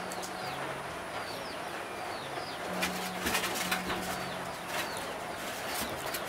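A dove cooing in long, low notes that step down and back up, with a small bird's high, falling chirps repeating throughout. A few light clicks and knocks of split firewood being handled around the middle.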